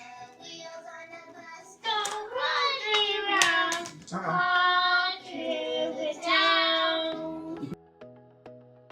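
A child's high voice singing, softer at first and loud from about two seconds in. Near the end the singing stops and gentle instrumental music with plucked notes begins.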